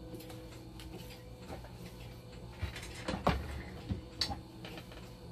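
A few light knocks and handling sounds, bunched about three to four seconds in, as a small cardboard box is set down and handled on a workbench. A steady low hum runs underneath.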